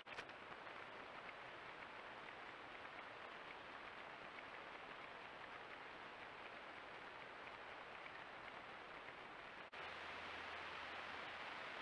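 Faint steady hiss of a trail camera's microphone, with no animal sound. Just before ten seconds it drops out for an instant at a cut, then goes on with a low steady hum under the hiss.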